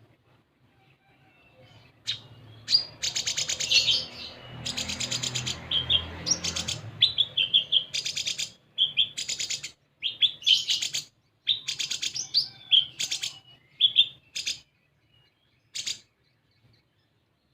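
Kolibri ninja sunbird singing: rapid high-pitched chirps and buzzy trills in repeated short bursts with brief gaps, starting about two seconds in.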